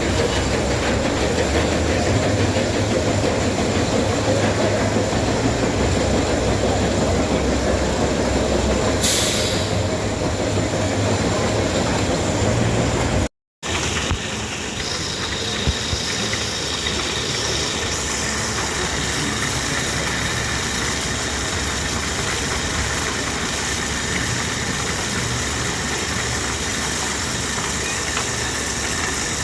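Roller coaster train rolling along its track with a steady rumble. It breaks off abruptly about 13 seconds in, then a similar but slightly quieter rumble carries on.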